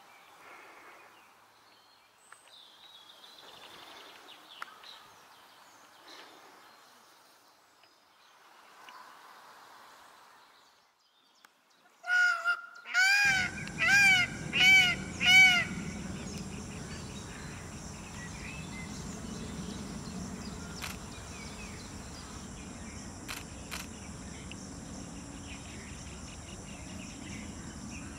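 Indian peafowl calling: a quick run of about five loud, honking calls, each rising and falling in pitch, starting about twelve seconds in. Before it there are only faint outdoor sounds. After it comes a steady outdoor background with a high, even whine.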